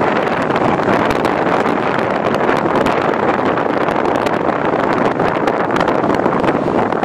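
Steady rushing noise of a car driving along a street: wind on the microphone mixed with tyre and road noise, with many small ticks throughout.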